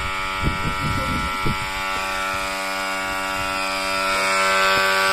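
Battery-powered onion-cutting machine's small electric motor running with a steady hum, with a few short knocks in the first second and a half.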